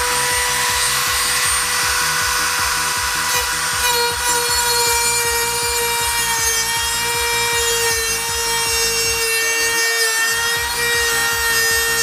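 Handheld high-speed rotary tool with a cut-off wheel running under load with a steady whine as it grinds through the car's sheet-metal fender. The cutting sound turns harsher about four seconds in.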